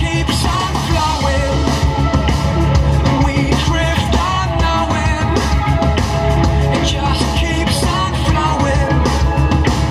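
Rock music with a singing voice, playing loudly and steadily.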